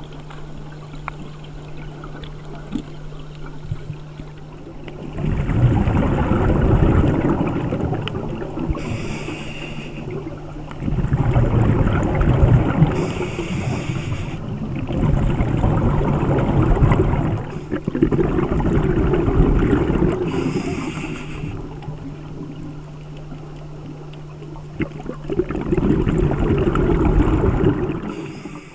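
Scuba regulator breathing heard underwater: five long rushes of exhaled bubbles, a few seconds each and several seconds apart, over a steady low hum.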